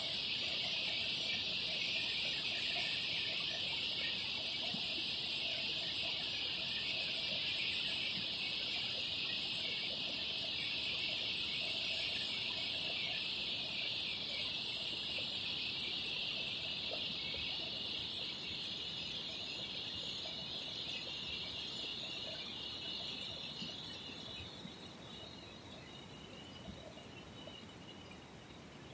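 A dense, steady, high-pitched chorus of frogs calling, over a fainter rush of flowing water; the chorus eases off near the end.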